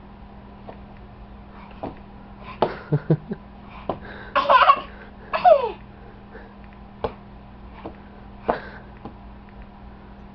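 A toddler giving two short squealing laughs, the second falling in pitch, with a few sharp taps of a small hand slapping a wall, over a steady low hum.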